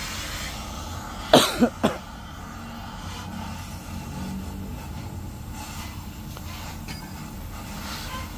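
Gas cutting torch hissing steadily as it burns out the internal baffles of a Yamaha Mio muffler. A person coughs three times in quick succession about a second and a half in.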